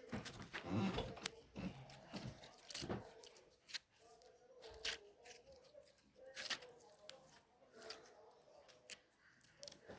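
Homemade slime being worked by hand: irregular crackling and clicking, with a few soft low thuds in the first couple of seconds.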